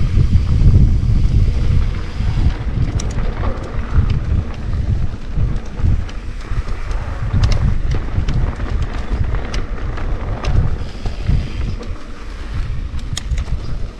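Wind buffeting the microphone during a mountain-bike trail ride, a heavy low rumble, with several sharp clicks and ticks from the bike over rough ground.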